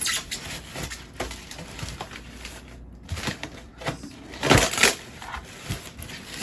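Statue packaging being opened and handled: cardboard and packing material scraping and rustling in a series of short bursts, the loudest about four and a half seconds in.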